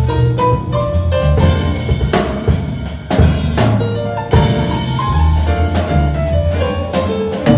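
Music led by a drum kit, with bass drum and snare hits several times a second over a bass line and a melody.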